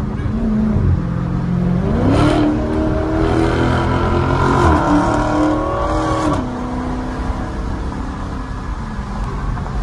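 Dodge Challenger SRT 392's 6.4-litre HEMI V8 through a muffler-delete exhaust, heard from inside the cabin. It is running steadily, then the revs climb about two seconds in, dip briefly a little past halfway through the acceleration, climb again, and fall back to a steady lower note about six seconds in.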